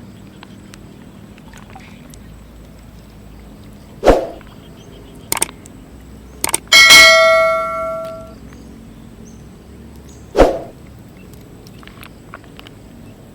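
A metal object struck once, ringing and fading over about a second and a half, with two heavy thumps before and after it and a couple of sharp clicks in between.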